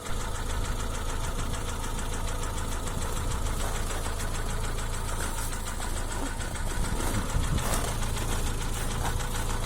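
Hyundai ix35's 2.0-litre engine running steadily with a rapid, even knock from the engine.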